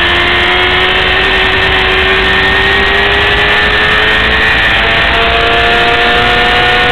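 600 cc racing motorcycle engine running hard at high revs. Its pitch climbs slowly as the bike accelerates, then dips slightly at the very end.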